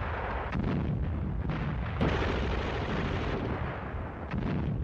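Battle sound effects of artillery fire and explosions: a continuous heavy rumble with a sharp bang about two seconds in.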